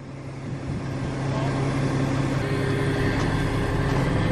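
Mobile crane's diesel engine running as it lifts the suspended propane tank, growing louder over the first two seconds and then holding steady.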